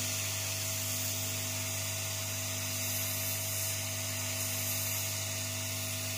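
Hot air rework gun blowing steadily: a constant hiss of air over a low motor hum with a thin steady whine. Its nozzle is heating a COF driver chip bonded to an LCD panel, softening the bond so the chip can be removed.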